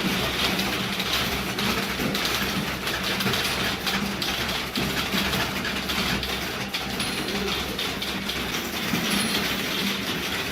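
Many people typing at once during a timed typing test: a dense, steady clatter of keystrokes with no pauses, over a low steady hum.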